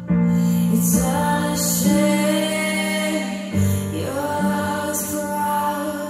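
A slow song with a soft female voice over held chords and a sustained bass, played back through home hi-fi open-baffle speakers.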